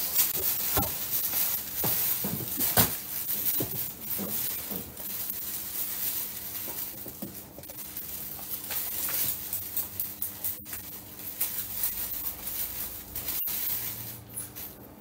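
Paper and cardboard rustling and crinkling, with scattered light knocks, as a paper shopping bag and a cardboard box are handled; busiest and loudest in the first few seconds, over a faint steady hum.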